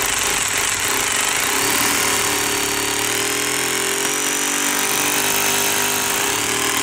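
Makita hammer drill running steadily as it bores a fixing hole into a rendered masonry wall with a masonry bit.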